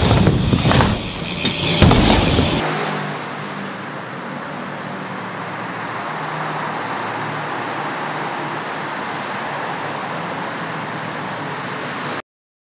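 Steady urban road-traffic noise, an even hum of passing cars, after a loud low rumble in the first two and a half seconds; it cuts off abruptly just before the end.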